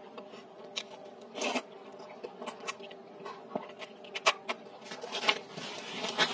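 Close-miked eating of rice noodles in soup: scattered wet mouth clicks, chewing and short slurps, with a longer hissing slurp near the end.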